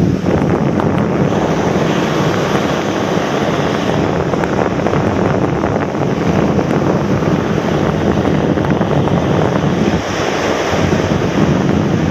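Ocean surf breaking and washing up a sandy beach, with strong wind buffeting the microphone.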